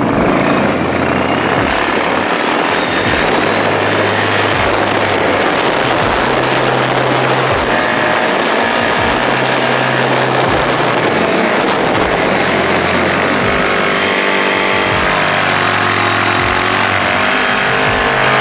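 ATV (four-wheeler) engine running steadily while towing a snow tube on a rope, with heavy wind noise rumbling on the microphone.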